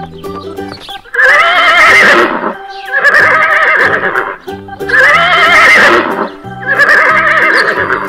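Horse whinnying four times in a row, each a long call with a quavering, shaking pitch, over background music with a steady beat.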